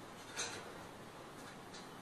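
A few faint clicks of a dog's paws and claws on the rungs of a metal ladder as it climbs, the sharpest about half a second in, over a low steady hiss.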